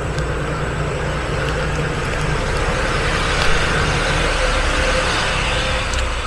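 Steady rumble and hiss of road traffic, growing louder about halfway through.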